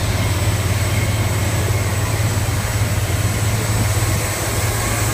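River boat's engine running steadily: a constant low drone with an even hiss above it.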